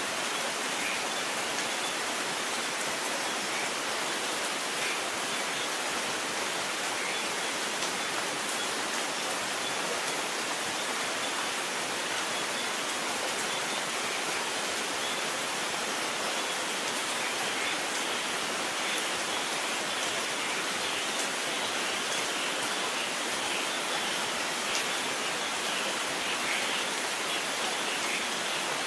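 Steady rain: an even, unbroken hiss of falling water, with no thunder.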